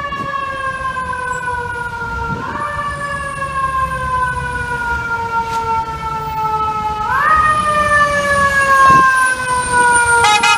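Fire engine siren wailing as the truck approaches. Each cycle rises quickly in pitch, then falls slowly over about four seconds, and it grows louder in the second half over a low traffic rumble. Near the end a rapid pulsing warning sound joins in.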